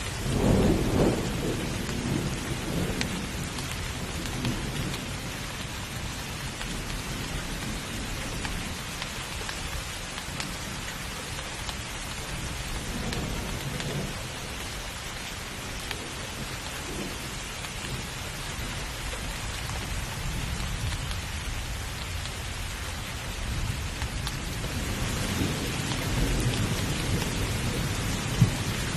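Steady rain of a rainstorm with thunder: a loud rumble of thunder about a second in, and another rumble building near the end.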